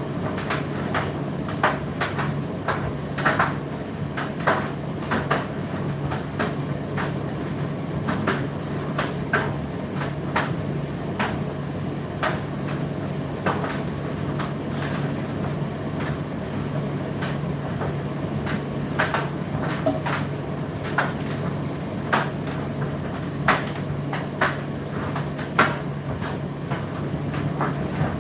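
Indesit IDC8T3 condenser tumble dryer running mid-cycle: a steady motor hum under the rush of the drum, with irregular knocks and clicks as the load tumbles against the drum.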